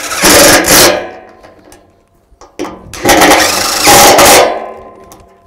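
Cordless DeWalt impact driver tightening bolts into an aluminium pergola post. It runs in two loud bursts: a short one of about a second at the start, and a longer one of about two seconds from about two and a half seconds in.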